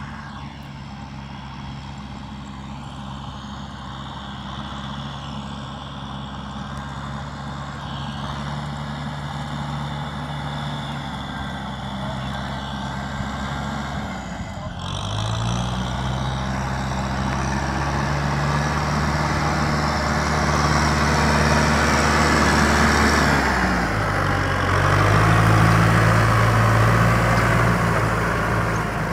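Kubota M6040 tractor's four-cylinder diesel engine running steadily under load while it drives a rear rotary tiller through wet rice-field soil. The engine note shifts up about halfway through and again near the end, and the sound grows louder as the tractor comes closer.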